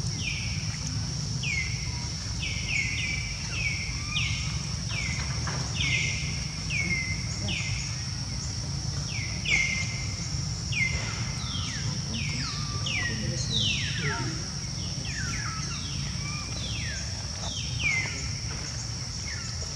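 Outdoor daytime ambience: a steady high-pitched insect drone with a long run of short chirps that each fall in pitch, repeating about once or twice a second, over a low rumble.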